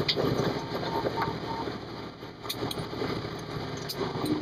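Engine and road noise of a fire engine on the move, heard from inside the cab: a steady, dense rumble.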